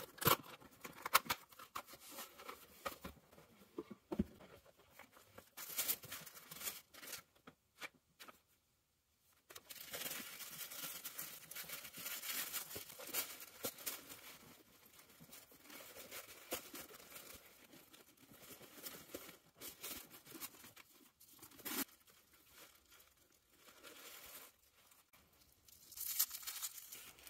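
Unboxing packaging being handled: a cardboard box opened with scattered small taps and clicks, then tissue paper and a cotton dust bag rustling and crinkling for a long stretch, and a short burst of crinkling near the end as protective wrapping is peeled off a leather handbag strap.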